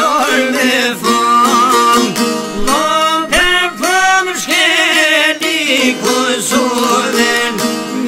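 Albanian folk music: a continuous melody on plucked string instruments, with notes that slide up and down and a wavering, ornamented passage midway through.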